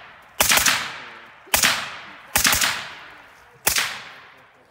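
Four shots from a suppressed 5.56 rifle, about a second apart, each trailing off slowly.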